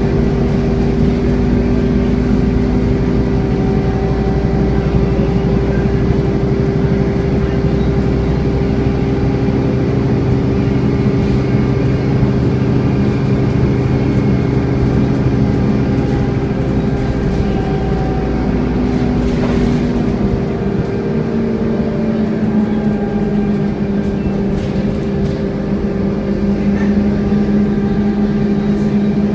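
Scania N230UD double-deck bus running, with a steady 'hoovering' drone, the vacuum-cleaner-like whine that enthusiasts attribute to the Scania's cooling fan, held over the engine. About two-thirds of the way through, the engine note shifts down and settles on a new steady tone.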